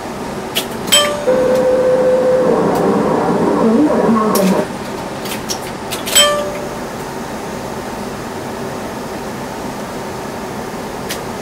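A scale-model traction lift's DC motor and worm-gear sheave run for about three and a half seconds, starting after sharp relay clicks and stopping abruptly, as the car travels up a floor and arrives. Another sharp click with a brief tone comes about six seconds in, and a steady hum runs underneath.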